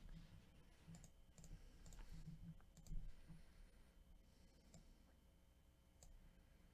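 Near silence: a few faint, scattered clicks over a low room hum.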